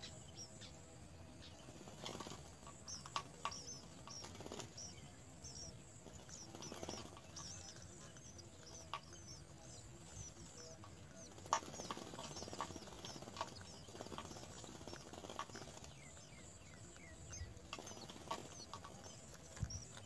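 House sparrow nestlings begging as a parent feeds them: a long run of faint, thin, high cheeps, several a second. Occasional soft knocks and wing flutters come from the adult moving in the nest box.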